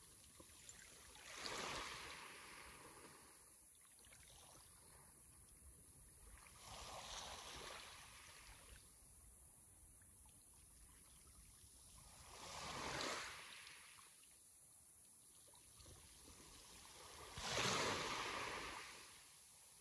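Sea waves washing onto the shore: four separate surges, each swelling and fading over about two seconds, with a soft hiss of water between them; the last surge, near the end, is the loudest.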